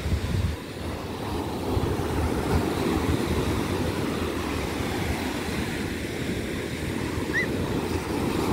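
Surf breaking on a sandy beach, a steady rushing noise, with wind buffeting the microphone as a low rumble. A single brief high chirp comes near the end.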